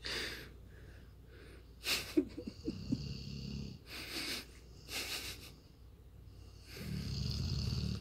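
Dog snoring as it dozes: a string of separate noisy breaths every second or so, some with a low rumble, then a longer, lower snore near the end.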